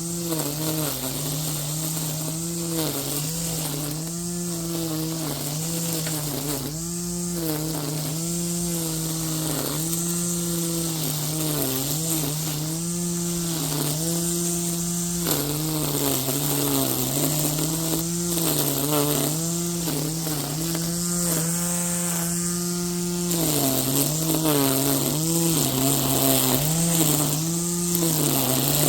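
Yardworks string trimmer running while edging grass: a steady motor hum that dips in pitch again and again as the spinning line bites into the grass, then picks back up.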